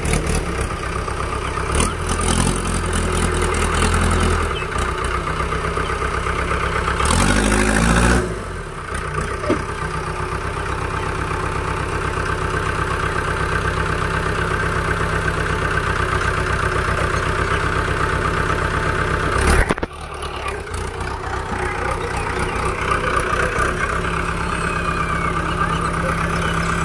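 Swaraj 855 tractor's diesel engine running steadily, revving up twice in the first eight seconds and briefly cutting out about twenty seconds in before carrying on.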